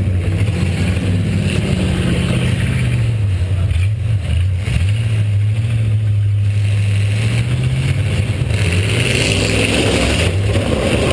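Eight-cylinder demolition derby car engine running under load and revving: its pitch rises and falls, then holds steady for several seconds before changing again near the end. It is heard close up from the onboard camera.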